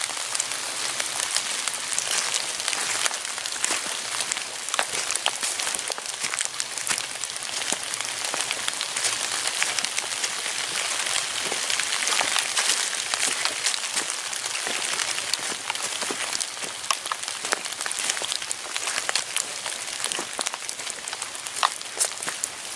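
Rain falling on the woods and the leaf-covered ground: a steady hiss with many separate drops ticking.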